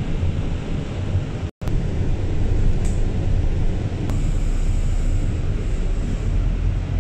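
Steady low rumble of a double-decker bus on the move, heard inside the cabin on the upper deck, with a faint high whine from about four seconds in. The sound cuts out completely for a moment about one and a half seconds in.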